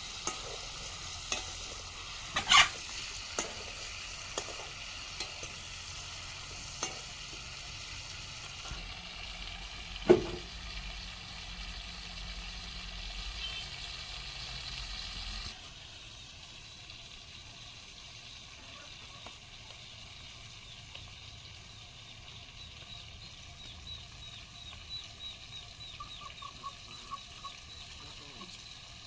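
Food sizzling in a frying pan while a utensil stirs it, scraping and knocking sharply against the pan a few times. About halfway through the sizzle stops abruptly, leaving a quieter background with faint chicken clucks and chirps near the end.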